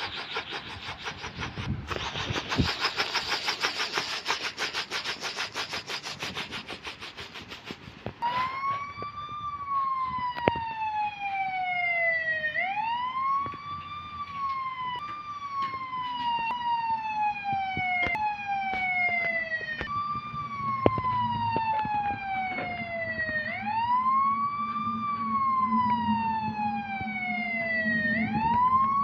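A rapid helicopter-rotor chop fills the first eight seconds. Then a police car siren starts up and wails, sweeping up and down in pitch every three to four seconds, with a low steady hum joining it in the second half.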